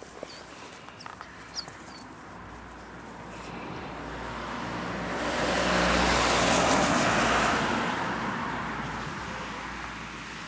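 A car passing by on the road. It builds steadily, is loudest a little past the middle and fades away over several seconds.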